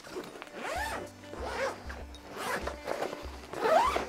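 Zip of an inflatable SUP board's carry backpack being pulled open in several long zipping strokes, the loudest near the end.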